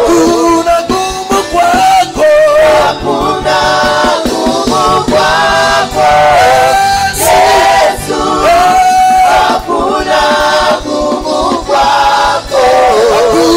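Gospel worship song: a sung melody with vibrato, with choir voices and low instrumental backing, in phrases of a second or two.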